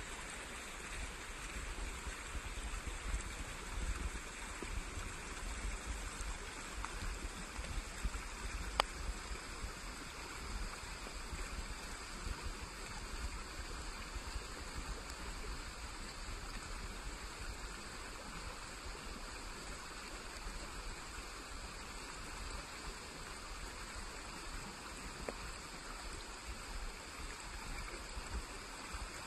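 Steady rushing of flowing water, with one sharp click about nine seconds in.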